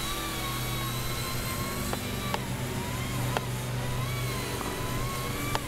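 Small RC helicopter's brushed electric motors and four-blade rotor whining as it flies, the pitch wavering up and down as the throttle changes, with a few faint clicks.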